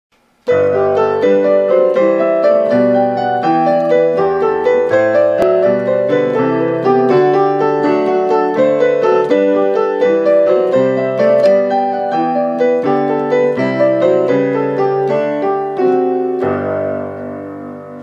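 Piano music: a steady run of notes starting about half a second in, ending on a held chord that fades away near the end.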